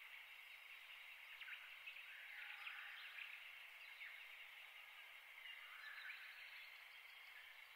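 Near silence: faint ambient background noise.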